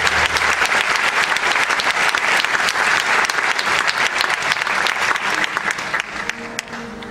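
Theatre audience applauding at the end of a sung duet: dense clapping that dies down near the end.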